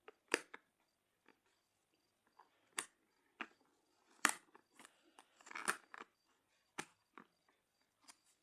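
USB cable packaging being opened by hand: irregular crinkles, rustles and sharp clicks, with a denser stretch of rustling about two-thirds of the way through.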